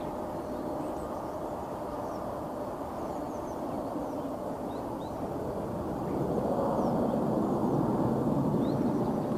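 Distant narrow-body airliner's jet engines running, a steady rumble with a faint whine that grows louder about six seconds in. Small birds chirp faintly.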